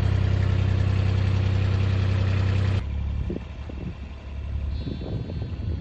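A vehicle engine idling steadily, which cuts off suddenly about three seconds in, leaving faint knocks and rustles.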